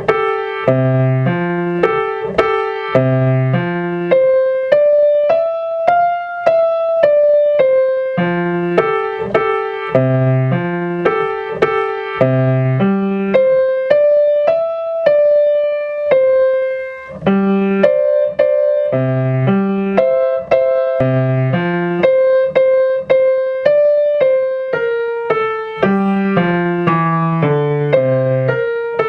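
Piano playing a simple beginner piece hands together: a light melody of short, partly repeated notes over low bass notes, with some stretches of longer-held melody notes where the bass drops out.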